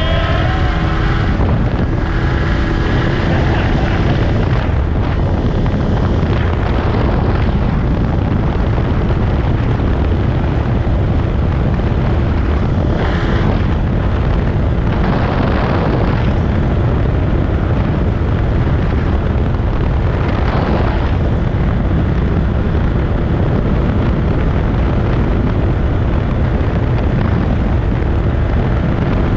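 Tohatsu 30 outboard on a 1986 Addictor 190 mini boat running at speed, its pitch climbing in the first second and then holding steady, with wind buffeting the microphone and water rushing past the hull.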